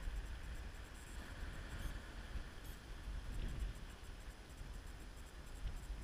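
Sea waves washing against a rocky shore, under a gusty low rumble of wind on the microphone.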